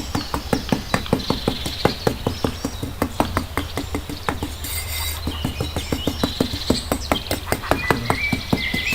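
Quick, uneven taps or clicks, several a second, with birds chirping in the background.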